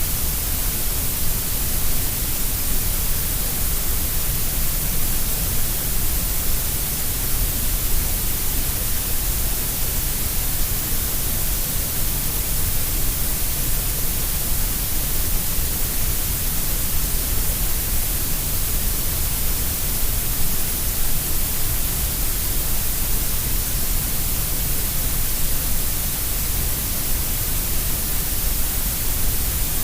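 Synthetic grey noise, steady and unchanging, heavier in the deep low rumble and the high hiss than in the middle range.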